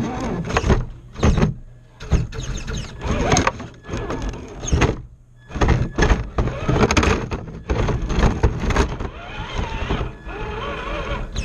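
Onboard sound of a scale RC rock crawler working over rocks. Its electric motor and gears whine up and down in pitch, with frequent knocks and scrapes as the tires and chassis hit the rocks.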